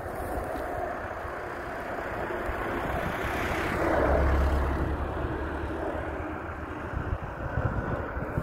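A formation of Alpha Jet trainers flying past. The jet engine noise swells to a peak about four seconds in, drops in pitch as they go by, then slowly fades.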